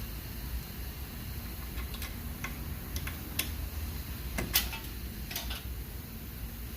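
Scattered light metallic clicks and ticks, about a dozen at irregular spacing, the loudest a little after four seconds in, from hand tools and hub bolts being handled while the hub assembly is fitted. A steady low hum runs underneath.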